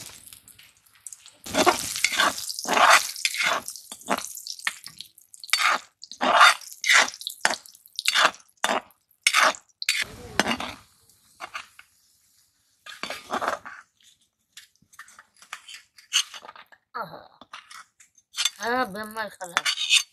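Metal slotted spatula scraping and clanking against a metal kadai in a long run of short strokes, fried fish pieces being stirred and lifted out of the hot oil; the strokes thin out about halfway through, and a woman speaks briefly near the end.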